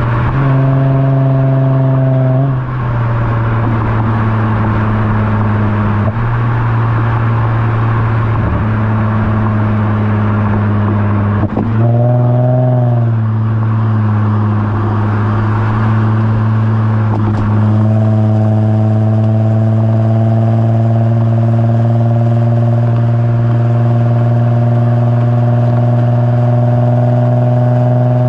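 Lexus IS350's 3.5-litre V6 heard right at the tip of an HKS Hi Power catback exhaust with Invidia midpipe, droning steadily at cruising revs. The pitch dips briefly near the start and again about twelve seconds in, then climbs slowly over the last ten seconds.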